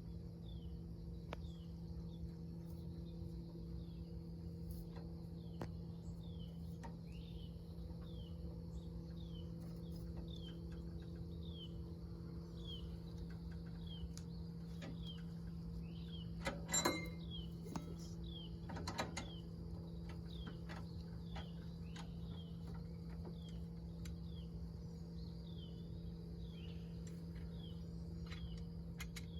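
A repeated short falling chirp, about one and a half a second, over a steady low hum, with two brief clatters about two thirds of the way through.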